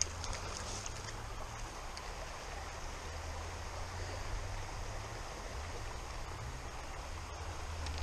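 Creek water running steadily, over a low rumble.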